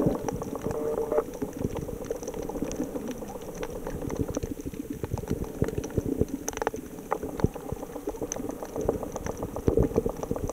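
Underwater sound picked up by a submerged camera: a dense, irregular crackling and bubbling that never stops, over a low rumble.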